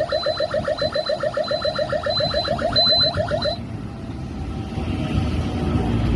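Wireless train-approach warning alarm sounding a rapid electronic warble, about seven pulses a second, with a higher beep over it, warning that a train is approaching. It cuts off suddenly about three and a half seconds in, and a low rumble builds after it.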